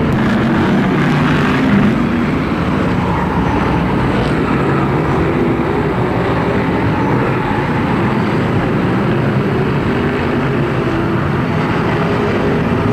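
A pack of BriSCA F1 stock cars' V8 engines running hard around the oval, one dense, steady engine noise with pitches shifting as the cars pass and change throttle.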